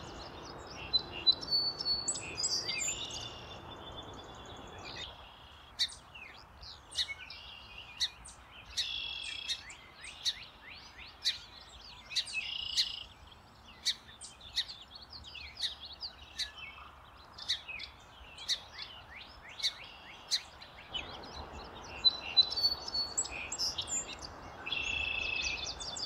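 Song sparrow singing: repeated phrases of clear notes running into buzzy trills, with many short, sharp notes between the phrases.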